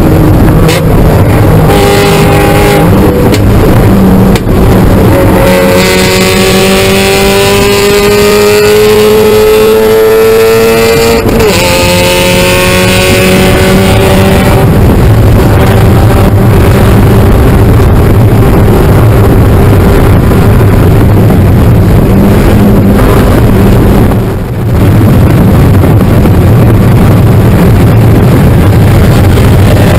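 Spec Miata race car's four-cylinder engine at high revs, heard from inside the stripped cabin. It climbs in pitch through a gear and drops at an upshift about eleven seconds in, then pulls hard at steady high revs over loud road and wind noise.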